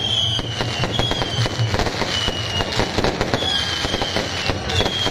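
Aerial fireworks going off in rapid crackles and bangs. Over them a high whistle that falls slightly in pitch sounds about five times, roughly once a second.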